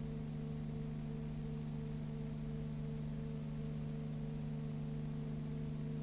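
Steady low hum with hiss, and a fainter higher tone pulsing a little faster than once a second: the noise of a silent cine film's transfer, with no penguin calls heard.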